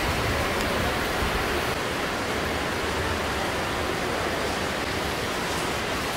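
Steady rush of flowing water inside a limestone cave, easing slightly about two seconds in.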